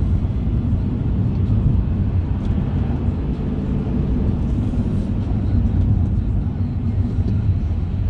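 Car's engine and tyre noise heard from inside the cabin while driving, a steady low rumble.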